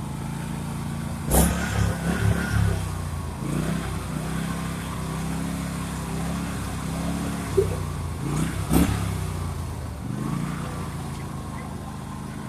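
Riding lawn mower's small engine running steadily while the mower is stuck in mud, its pitch rising and falling a little as it is worked. Two short sharp knocks stand out, one about a second and a half in and one near nine seconds.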